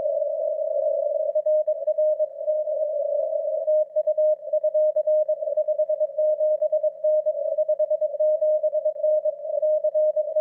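Morse code (CW) signal received on a SunSDR2 DX ham transceiver on the 20-metre band: a steady tone of about 600 Hz keyed rapidly on and off, over band hiss narrowed by the CW filter. The operator takes it for a Parks on the Air (POTA) activation.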